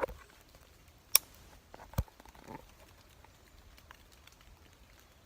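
Light rain dripping and pattering on leaves in the woods, with two sharp taps about one and two seconds in, the second heavier.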